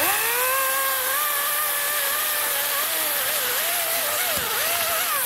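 Electric chainsaw motor and chain spinning up as the trigger is pulled. It runs with a steady high whine over a hissing chain, its pitch wavering a few times. Near the end it winds down as the trigger is released.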